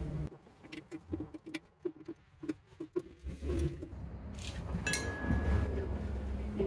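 A run of light clicks and taps from metal workshop parts being handled, then a steadier low rumble with a sharp clink about five seconds in.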